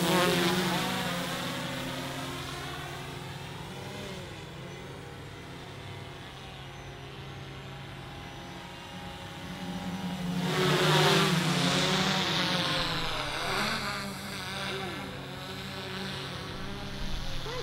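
A quadcopter's electric motors and propellers buzzing and whining in flight, the pitch rising and falling as the throttle changes. The sound is quieter from about three seconds in, then swells again around eleven seconds as the craft comes close.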